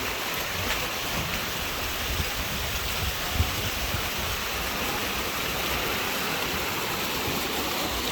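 Waterfall with a steady, even rush of falling water.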